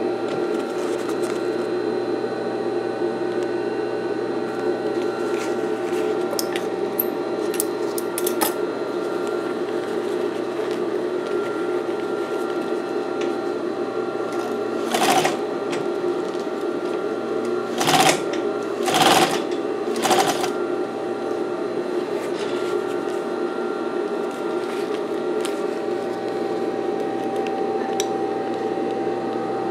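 Singer 241-12 industrial sewing machine running steadily, stitching through upholstery material with an even hum. A few loud knocks come about halfway through.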